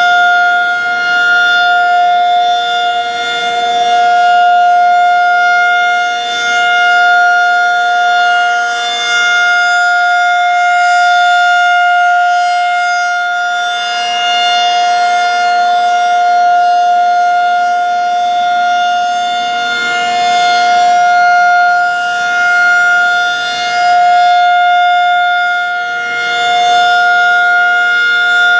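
Federal Signal 2001-SRN electromechanical warning siren sounding its full-alert steady tone, held at one pitch with no rise or fall. Its loudness swells and fades every few seconds as the rotating siren head sweeps past.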